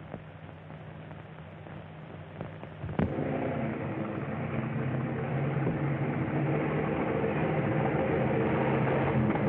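Hiss of an old optical film soundtrack, broken by a sharp splice click about three seconds in. After the click comes a steady engine drone of an early-1930s motor car that grows gradually louder, as if approaching.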